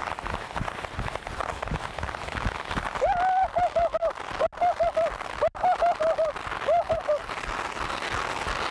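A bank of firework fountains spraying sparks all at once with a dense, steady crackling hiss. From about three to seven seconds in, a run of short warbling tones that rise and fall, a few each second, sounds over the crackle.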